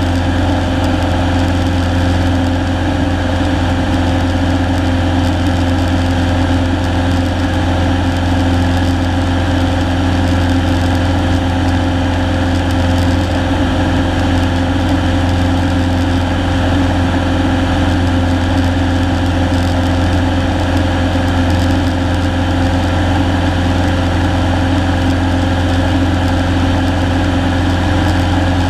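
Cessna's piston engine and propeller running steadily in flight, a loud even hum heard from inside the cabin.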